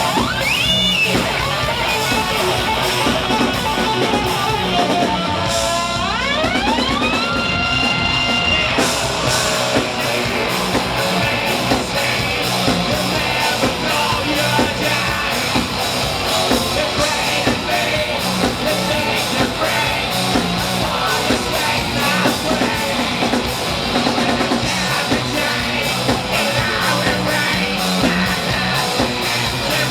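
Live hard rock band playing loudly: distorted electric guitar and drum kit with shouted vocals. There is a rising guitar glide about six seconds in that holds high for a couple of seconds.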